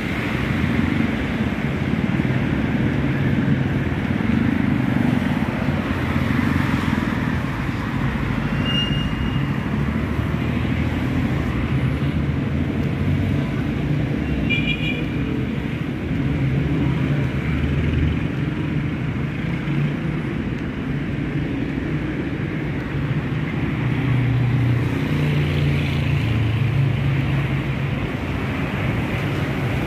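City street traffic: cars and motorcycles passing on the road alongside, a continuous rumble with low engine hum. A short high tone sounds about nine seconds in, and a brief, higher chirp-like tone about fifteen seconds in.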